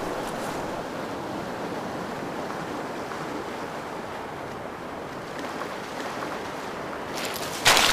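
Sea waves washing steadily onto a pebble beach, with a sudden louder rush of noise just before the end.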